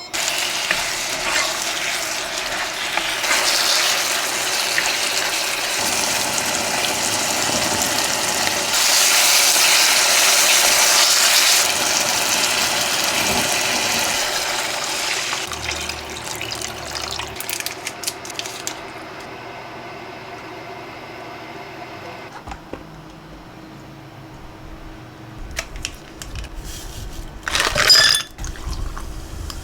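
Water rushing and filling steadily, loudest about ten seconds in and easing off after about eighteen seconds. A short loud clatter comes near the end.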